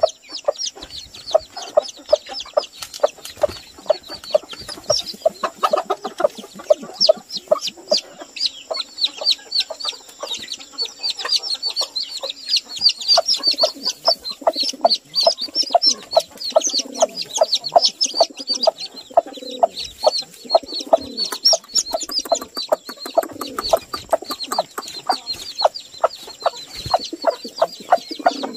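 A flock of jungle chickens calling: a dense, continuous chorus of rapid high peeps, with lower clucking running under it. Lower, falling clucks join in from about the middle on.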